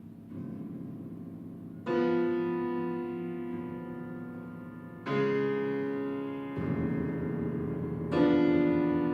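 Piano playing slow, heavy chords: three loud ones struck about three seconds apart, each left to ring and die away, with softer low notes in between.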